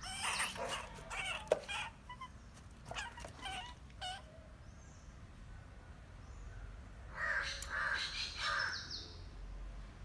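Crows cawing in three short clusters of harsh calls, with a single sharp knock about a second and a half in.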